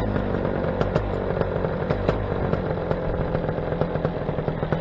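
Paramotor engine and propeller running steadily under power in flight, a loud, even drone with a fast pulse.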